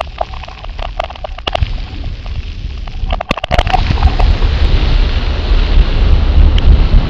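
Wind buffeting the microphone, rising to a steady low rumble after about three and a half seconds, with scattered clicks and knocks in the first half.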